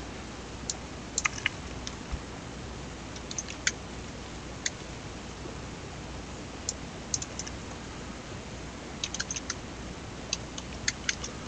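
Computer keyboard keystrokes and mouse clicks: sparse, sharp taps in small groups as numbers are typed into a software dialog.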